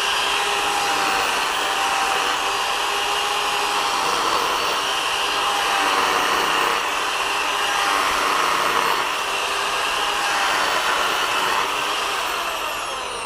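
Bosch corded drill's electric motor running at speed on new carbon brushes: a steady whine over a rushing noise, with a rubbing noise that the repairer takes for the rotor touching the stator. Near the end it is switched off and spins down, its pitch falling.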